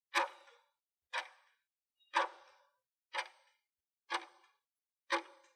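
Countdown timer sound effect: a sharp clock-like tick about once a second, six ticks in all, each with a short ringing tail.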